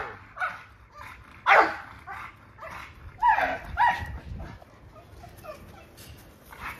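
XL pit bull–type dogs barking in short barks, the loudest about a second and a half in and twice just past three seconds, growing fainter in the last few seconds.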